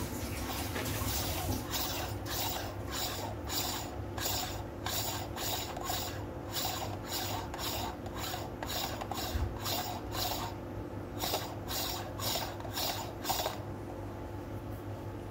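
Hand-held coffee distribution tool twisted back and forth in a portafilter basket of espresso grounds, rasping against the coffee and the metal dosing ring in quick regular strokes, two to three a second. The strokes begin about two seconds in and stop near the end.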